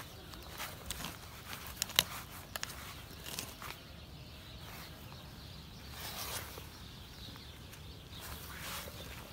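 A hand digging tool scraping and chopping into loose, stony soil, with a run of short sharp clicks in the first few seconds, the loudest about two seconds in. Later come softer rustles as gloved hands crumble and sift the dirt.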